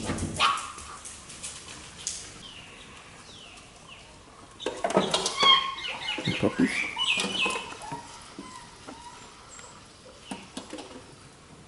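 Young puppies giving short high-pitched squeaks and whines, busiest from about five to eight seconds in.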